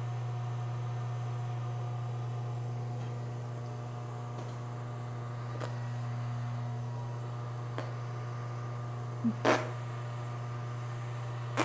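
A steady low hum in a small, echoing room, with a few faint clicks and one short knock about nine and a half seconds in.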